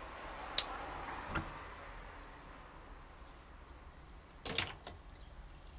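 A sharp click followed by a soft hiss that fades over about two seconds, a lighter click, and then a louder short clatter of clicks about four and a half seconds in.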